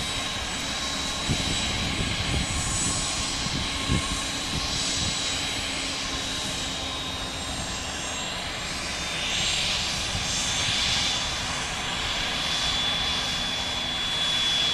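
Dassault Falcon 2000 business jet taxiing, its twin turbofan engines running at low power with a steady high whine over a low hum. The sound swells slightly about ten seconds in and again near the end as the jet passes.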